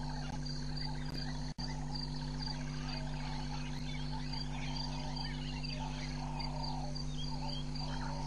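Bush ambience of calling frogs, insects and birds: a high chirp repeating about twice a second and a fast pulsing call over scattered chirps, with a steady low hum underneath. The sound drops out for an instant about a second and a half in.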